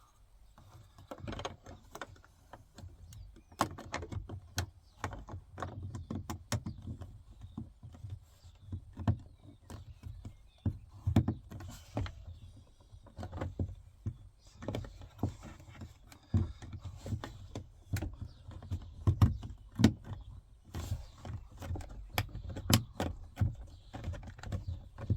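Small plastic interior trim pieces on a car door clicking and knocking as they are handled and pressed into place. The clicks and taps come irregularly throughout, some with dull low thumps.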